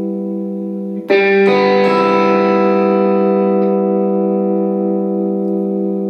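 1983 Fender Stratocaster Elite electric guitar strummed: a held chord rings out, then a new chord is struck twice in quick succession about a second in and left to sustain. It plays clean of the oscillation noise it used to have.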